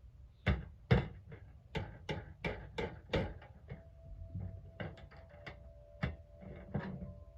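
Irregular sharp metal knocks and clacks of a Craftsman metal toolbox being handled and worked on while its bent lid is reshaped, about fifteen hits in all, the loudest near the start.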